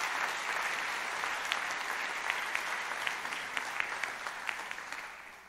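Audience applauding: a steady wash of clapping with scattered single claps standing out, dying away near the end.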